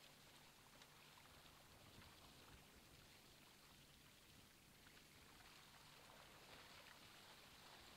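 Faint rushing and splashing of water as a chain-mesh scallop dredge full of scallops is dragged through the sea along a moving boat's hull, over a low steady hum.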